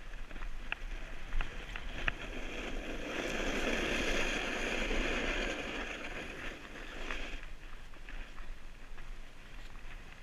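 Edges sliding and scraping over packed, groomed snow during a downhill run, a steady rushing hiss mixed with wind on the camera microphone. It swells louder for several seconds in the middle, as on a harder carve, with a few light clicks.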